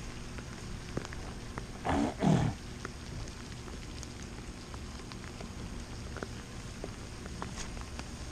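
Steady rain with scattered drops ticking. About two seconds in, a short, loud two-part voice-like grunt or call breaks in, from a source the material does not name.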